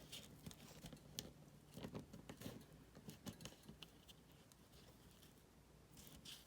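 Faint rustling and small scattered ticks of paper being handled and bent into a fold.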